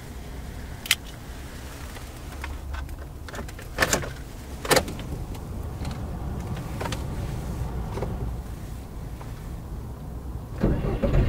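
A few sharp clicks and knocks, the loudest about one, four and five seconds in, over a low steady hum inside a car's cabin.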